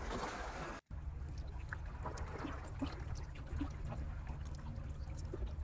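Wet eating sounds: seafood being chewed and pieces handled with fingers in a pot of chili oil, small scattered wet clicks and drips over a steady low rumble. A brief cut to silence comes about a second in.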